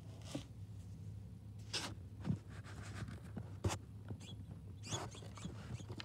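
A small finch working a window bird feeder: a few sharp taps and short scratchy rustles at irregular intervals as its beak and feet hit the tray and shift the black sunflower seeds, the sharpest tap just past halfway.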